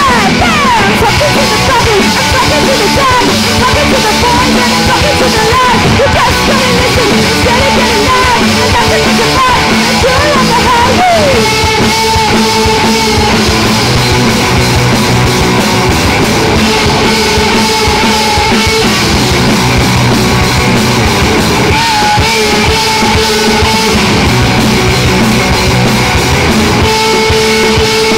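Punk rock band playing live: electric guitars, bass guitar and drum kit, with a singer's vocals.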